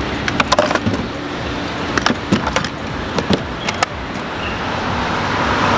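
A hard plastic helmet being pushed and shuffled into an electric scooter's plastic under-seat storage bin: a run of short clicks and knocks in irregular clusters, over steady street noise.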